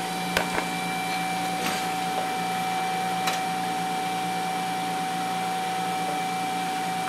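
Laboratory vacuum pumps running: a steady hum with a constant whine through it. Four short sharp clicks fall within the first few seconds.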